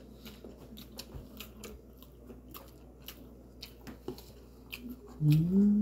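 Light clicks and scrapes of a metal spoon against a plastic plate while people eat a meal. Near the end comes a short, louder rising hum-like vocal sound.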